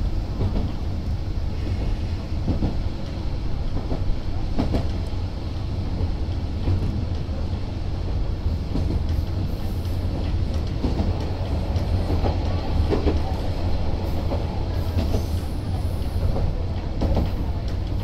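Isumi Railway Isumi 200-series diesel railcar running along the line, heard from on board: a steady low engine and running rumble, with irregular sharp clicks of the wheels over rail joints.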